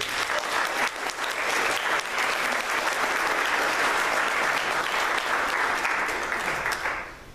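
Congregation applauding after a song, a dense patter of many people clapping that dies away about seven seconds in.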